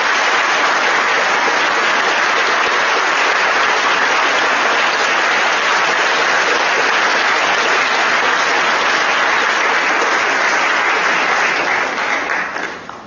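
Audience applauding steadily after a prize is announced, the clapping dying away about a second before the end.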